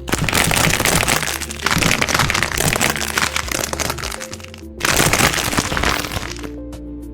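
Dense crackling and crunching in long bursts, with a short lull a little over four seconds in, over background music with steady held notes.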